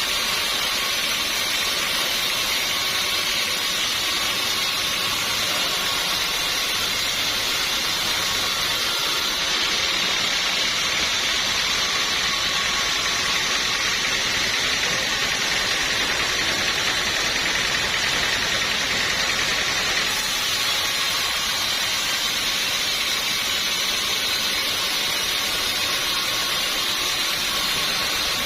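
Sawmill machinery running steadily, a constant hissing noise with a faint high whine and no distinct cuts or knocks.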